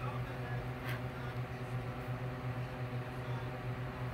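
Steady low electrical hum with a buzzy row of overtones, unchanging throughout, with a faint click about a second in.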